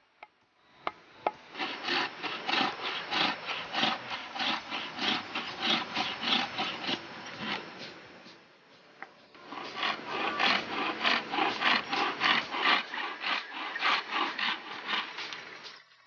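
Bamboo rings being rubbed back and forth by hand on a flat file, rasping in quick even strokes of about three a second. The strokes come in two bouts with a short pause in the middle. A few sharp taps come just before the filing starts.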